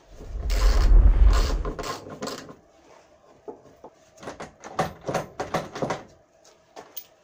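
Car front-end parts being worked by hand. A loud stretch of rubbing and scraping comes in the first two seconds. After that comes a scattered run of light clicks and knocks as the metal panel and its bolts are handled.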